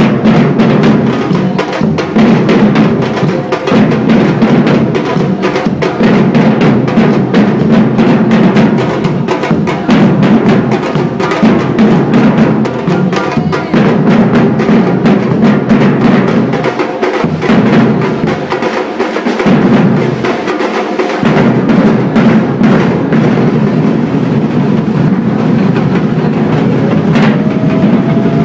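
Percussion ensemble of many drums playing a loud, steady Brazilian batucada-style groove, with deep bass drums under sharper higher strokes. About two-thirds of the way in, the bass drums drop out briefly several times.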